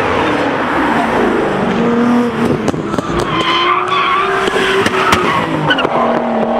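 Drift car's engine revving hard with tyres squealing as it slides, the engine pitch rising and falling throughout. A few sharp clicks sound in the middle.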